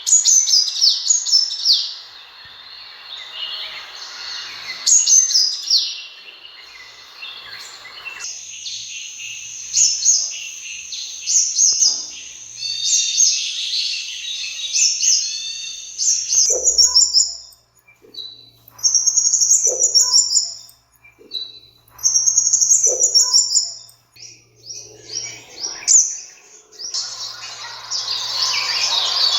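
Sunbirds calling: rapid high-pitched chirps and short falling twitters, packed densely at first, then in separate bursts with short gaps from about halfway through.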